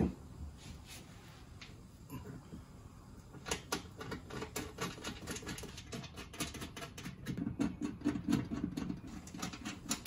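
Light clicks, taps and rattles of a power window regulator and motor assembly being worked by hand inside the car door's sheet-metal shell. The sounds are sparse at first and grow busier after a few seconds.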